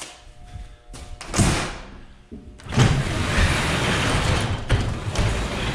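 Overhead garage door lifted by hand because its opener is broken: a clunk about a second in, then a long continuous rumble as the door rolls up.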